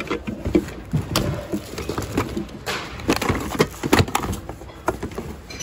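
Hands rummaging through a bin of mixed secondhand goods: plastic toys and boxes knocking and clattering irregularly against each other, with rustling of fabric and packaging.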